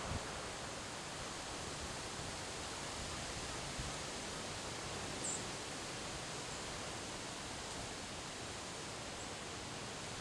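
Windstorm wind blowing steadily through trees, an even rustling hiss with a few light low thumps. A short high chirp sounds about five seconds in.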